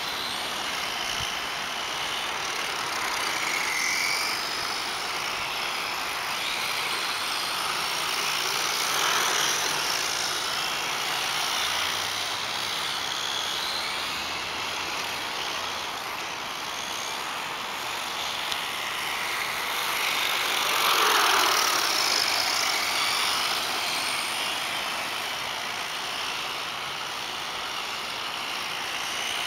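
Radio-controlled 1:10-scale cars driving laps of an asphalt track: a high motor whine that rises and falls as the cars pass, over a steady hiss. The whine swells loudest about two-thirds of the way through.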